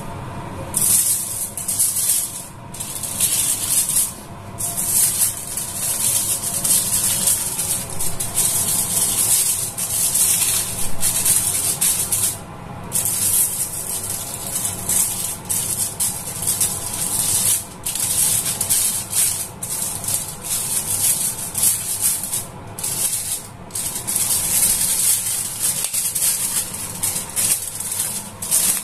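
Aluminium foil being crinkled and handled: loud rustling in uneven bursts with short pauses.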